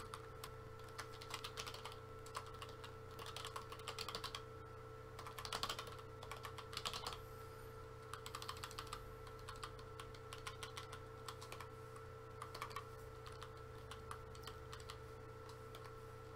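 Typing on a computer keyboard: irregular runs of quick key clicks, thinning out near the end, over a faint steady hum.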